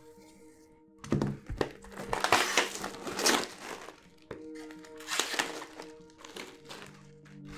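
Wrapping crinkling and tearing as a comic book is unwrapped by hand, in irregular bursts starting about a second in, over quiet background music.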